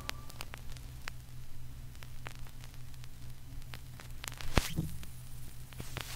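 Stylus riding the silent end of a 1969 33⅓ rpm vinyl record: surface crackle and scattered clicks and pops over a faint hiss and a steady low hum. One sharper pop comes about four and a half seconds in, and a louder burst near the end.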